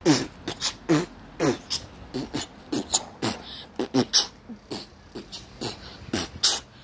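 A person beatboxing: short low kick-like sounds that drop in pitch, mixed with sharp hissing hi-hat strokes, two or three a second in a loose rhythm.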